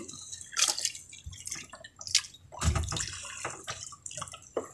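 Seawater splashing and dripping in irregular bursts as a wet fishing net and its float are hauled out of the sea into a small boat.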